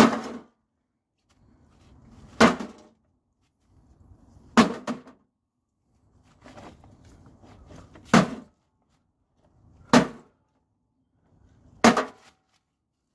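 Heavy blows striking a microwave oven, six sharp knocks about every two seconds, with rattling and handling noise between them.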